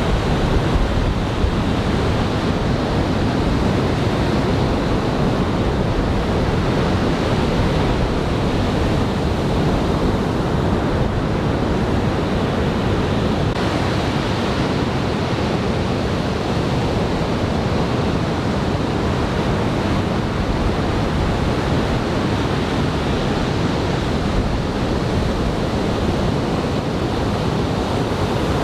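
Ocean surf from a typhoon swell: big, over-head-high waves breaking and washing ashore in a steady, continuous wash of noise, with wind buffeting the microphone.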